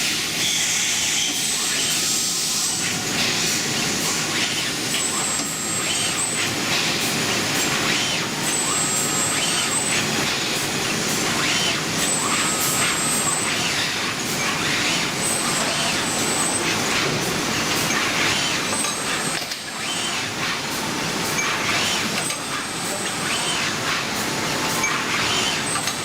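Automated bearing-ring crack and grinder-burn testing machine running: a steady hissing machine noise with a short high electronic tone that repeats about every three and a half seconds as rings pass through the test cycle.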